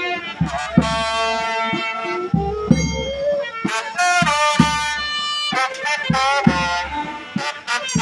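Funeral band music: a reed or brass wind instrument plays a wavering melody with sliding notes over irregular drum beats.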